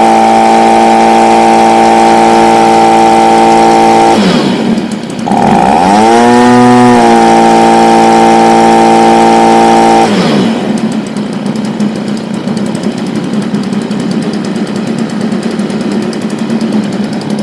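Stihl BG55 leaf blower's two-stroke engine running at high revs on a newly fitted carburetor, easing off about four seconds in and climbing back up with a brief sag, then dropping to idle about ten seconds in. It revs high and comes back down, which the owner takes to mean the new carburetor still needs some tweaking for full power.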